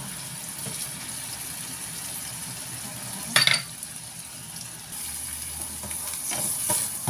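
Oil sizzling steadily in a nonstick frying pan as rounds of egg tofu shallow-fry, with a wooden spatula moving in the pan. A short, sharp knock about three seconds in is the loudest sound. From about five seconds in, whole garlic cloves sizzle in the oil.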